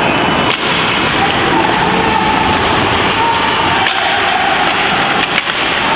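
Ice hockey rink ambience: steady noise of spectators chattering and calling out, broken by a few sharp clacks of sticks and puck, one about four seconds in and two in quick succession a little after five seconds.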